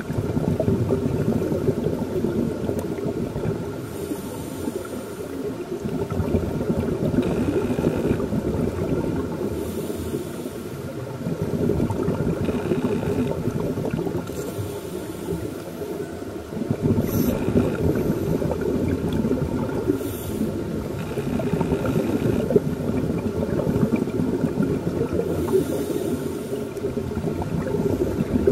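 Scuba regulator breathing and exhaled bubbles heard underwater: a constant crackling, bubbling hiss that swells and fades in a slow breathing rhythm, with a burst of bubbles about every five to six seconds.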